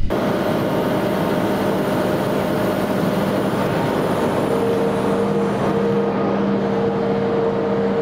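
Engine of a Kubota compact track loader running steadily as it works beside a sawmill, an even mechanical drone with a steady hum; a second, higher tone joins about halfway through.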